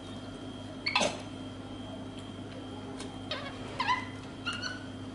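Capuchin monkey giving short, high, falling squeaks and chirps: one sharp squeak about a second in, then three quick chirps in the second half, over a steady hum.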